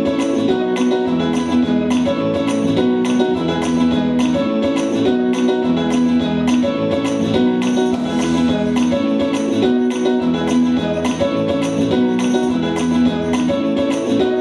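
Instrumental music with plucked guitar over a steady beat.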